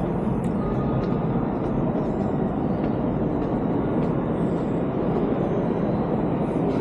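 Steady low rumbling ambience of a subway station, an even roar without distinct events.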